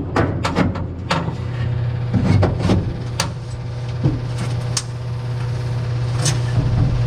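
Irregular knocks and clunks of metal parts being handled and fitted in a truck cab, over a steady low hum.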